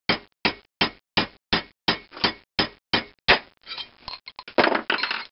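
Hand-hammer blows on a steel drift, about ten even strikes roughly three a second, driving a steel sizing ball through a bronze thin-wall valve guide liner to expand it tight in the reamed bore of a cast-iron cylinder head. The blows stop about three seconds in and give way to a rapid clatter of metal handling.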